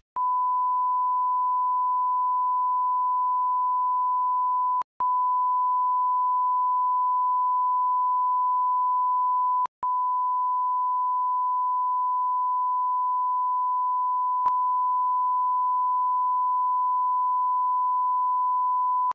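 A steady electronic test tone at about 1 kHz, a single pure pitch, broken by two short gaps about five and ten seconds in, with a faint click near the end.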